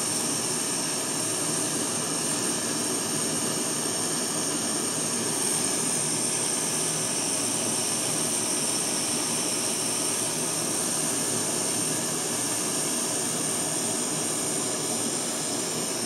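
Propane torch burning with a steady hiss, held at the flame between heats while brazing with silver solder.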